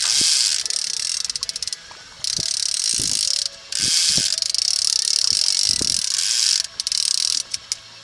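Trolling reel's ratcheting clicker buzzing in stretches of one to three seconds, with short breaks of a few single clicks between them, as line runs on and off the reel.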